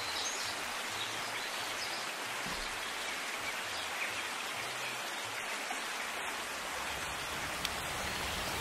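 Steady, even outdoor background hiss, with no distinct events standing out.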